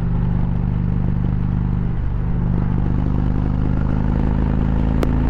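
Indian motorcycle's V-twin engine running steadily at highway speed, with wind rushing past.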